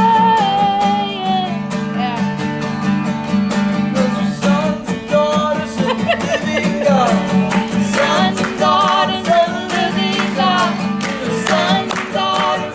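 Live worship music: acoustic guitar holding sustained chords under a wordless melody line with vibrato that grows busier about four seconds in.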